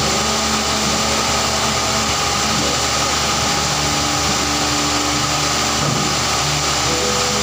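Woodworking power saw running steadily with its blade spinning free, not yet cutting, over the continuous noise of other workshop machinery.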